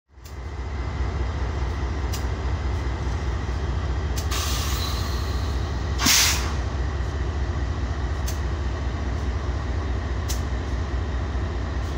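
Ferromex diesel freight locomotives passing close at low speed, their engines giving a steady deep rumble. Two short sharp hisses of air come about four and six seconds in, the second the loudest, with a few sharp clicks between.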